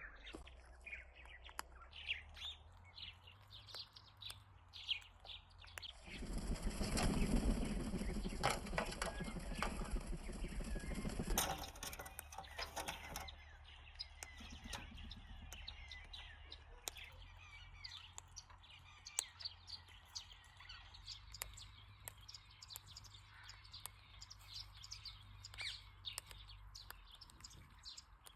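Small birds chirping in quick, short calls throughout, with a louder flapping, rustling noise for about five seconds starting about six seconds in.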